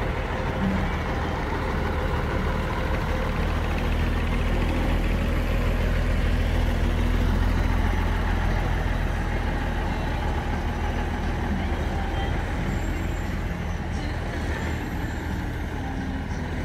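ERF E10 lorry tractor unit's Cummins 290 diesel engine running as the truck pulls slowly past and away. The engine note grows louder to about halfway, then fades as it moves off.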